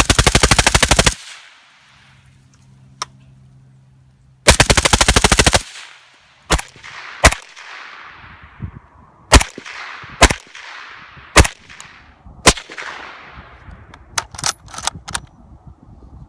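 Suppressed firearm shooting: two fast full-auto bursts of about a second each, one at the start and one about four and a half seconds in, then single shots roughly a second apart, ending with a quick string of shots.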